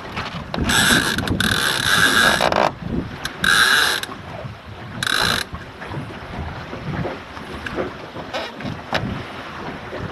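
Rope hauled through a ratchet block on a sailing dinghy: four bursts of rapid ratchet clicking in the first five and a half seconds, the second the longest, over steady wind and water noise.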